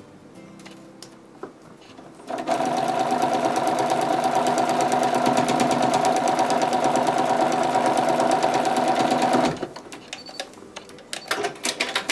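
Home sewing machine stitching steadily at speed, sewing a seam through paper foundation and fabric; it starts about two seconds in, runs for about seven seconds and stops suddenly. A few short clicks follow near the end.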